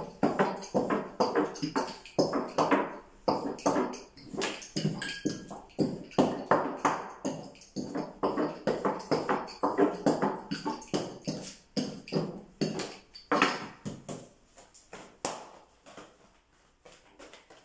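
Thin wooden rolling pin rolled back and forth over dough on a round wooden board, making a fast, uneven run of knocks, about two or three a second. The knocks thin out and fade in the last few seconds.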